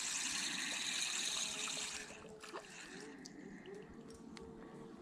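Spinning reel being cranked, a steady whirr for about two seconds as a small fish is wound in, then stopping, leaving only a few faint clicks.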